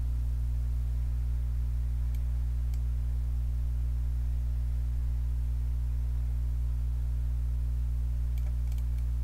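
Steady low electrical hum, with a few faint clicks about two seconds in and again near the end.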